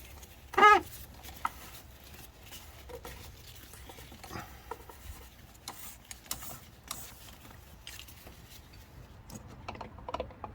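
A 27 mm socket wrench working on the oil filter housing cap, cracking it loose to let air in for draining: scattered light clicks and knocks of tool and cap.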